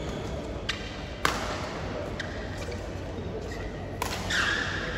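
Badminton rally: rackets striking the shuttlecock, a few sharp cracks at uneven intervals, the loudest about a second in, with sports-shoe squeaks on the court floor after some of the shots.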